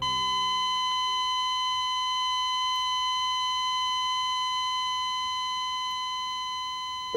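Patient heart monitor's flatline alarm: one continuous high-pitched tone, held unbroken and fading slightly toward the end, the sign that the patient's heart has stopped.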